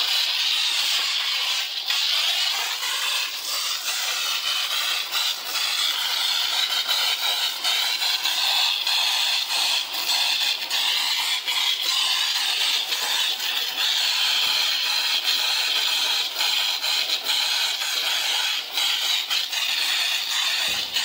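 Water jet from a hose's brass nozzle spraying onto a motorcycle's wheel, swingarm and frame. A steady loud hiss whose tone drifts as the jet moves over different surfaces.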